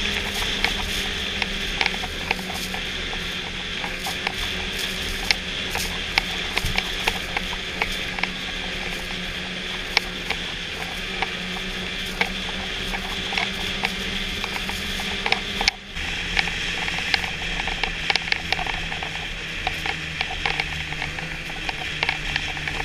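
Snowmobile running at a steady trail-riding speed: a constant engine drone under frequent rattling clicks from the machine. The sound dips briefly about 16 seconds in.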